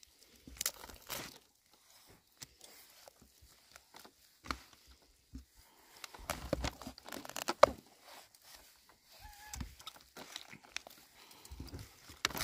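Food being torn and handled: irregular tearing, crinkling and crunching sounds, with a sharp crack about seven and a half seconds in.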